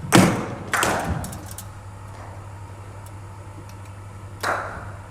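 Sharp knocks of a cricket ball off a bowling machine: two knocks about half a second apart just after the start and another about four and a half seconds in, each ringing on in a large hall, over a steady low hum.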